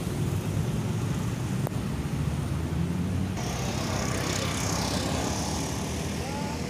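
Steady rumble of road traffic, with a brighter hiss coming in abruptly about halfway through and a single click before it.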